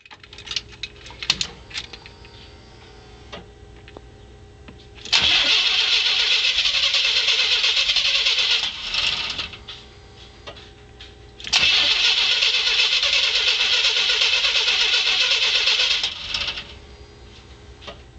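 Car engine cranking on the starter motor without catching, in two attempts of about four seconds each with a pause between. It cranks but won't start, which the owner puts down to a fuel-delivery problem, since spark seems fine and it runs briefly on starter fluid.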